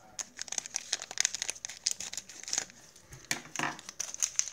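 Small toy packaging crinkling and rustling as it is handled and opened by hand, in a quick run of irregular crackles.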